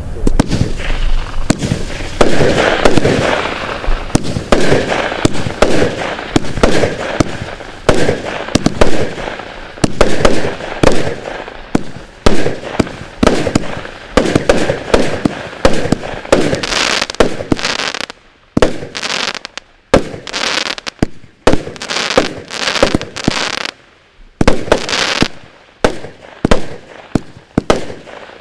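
Zeus Fireworks 'Dubai Adventures' 209-shot Category 2 firework cake firing: a rapid run of launch thumps and bursting bangs, tightly packed at first, then in spaced groups with short pauses in the second half.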